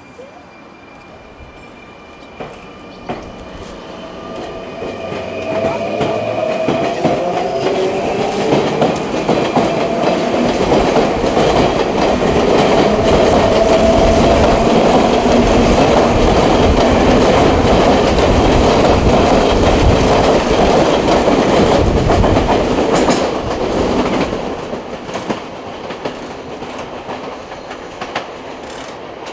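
Electric commuter train pulling out and accelerating: its VVVF inverter whine climbs in pitch as it gathers speed, then gives way to a steady rumble with wheel clatter over the rail joints, which fades near the end.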